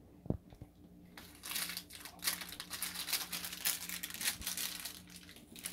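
Clear plastic hardware bags crinkling as they are handled and rummaged through, in dense crackly bursts. A single low thump comes just after the start.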